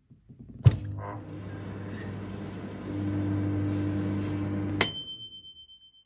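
Whirlpool microwave oven with a mechanical dial timer: a click as it starts, then a steady low hum while it runs, growing louder about three seconds in. Near five seconds it cuts off with a click and the timer bell dings once and rings on.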